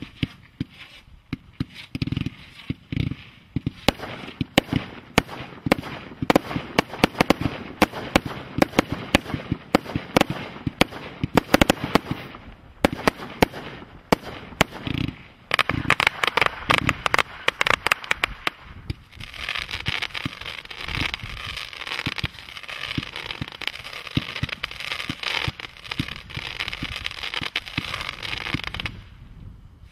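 Firework cake (barrage), Fireworks International's Panther Attack, firing: rapid volleys of bangs and cracks, a short lull about twelve seconds in, then a long stretch of dense crackling that stops shortly before the end.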